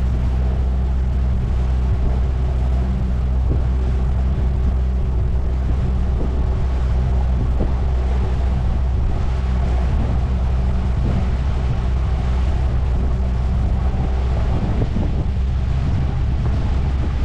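Jon boat's outboard motor running at a steady speed while underway, with wind noise on the microphone.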